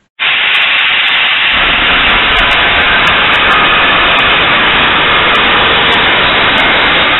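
An abrasive power tool grinding steadily and loudly on workpiece, starting abruptly, with a low rumble joining about a second and a half in.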